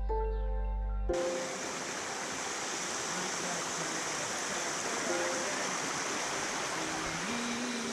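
Background music cuts off about a second in, giving way to a steady hiss of heavy rain falling close to the microphone.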